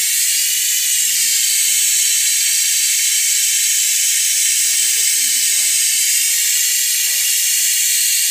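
Steady, loud, high-pitched hiss with almost nothing in the low end.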